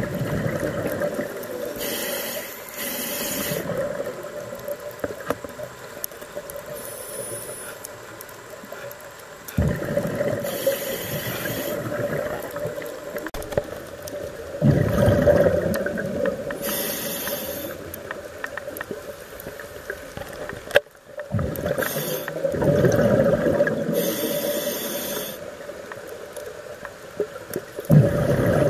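Scuba diver breathing through a regulator underwater: short hissing inhalations alternating with rushing, bubbling exhalations, about five breath cycles at a slow, even pace.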